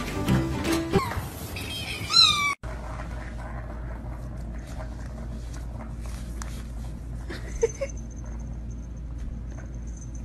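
A cat meowing: one loud call whose pitch bends up and down, about two seconds in. It then cuts off suddenly, and a quieter stretch with a steady low hum follows.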